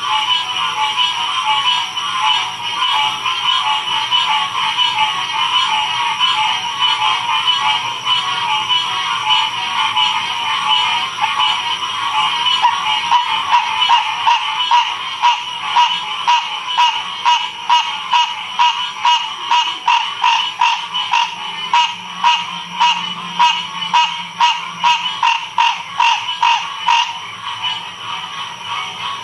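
Chorus of many frogs calling at once, a dense steady trilling, with one loud call repeating in a regular pulse about twice a second through the middle of the stretch.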